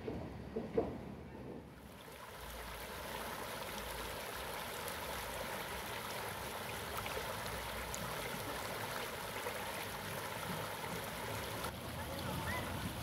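River water rushing over stones in shallow rapids: a steady rushing noise that sets in about two seconds in.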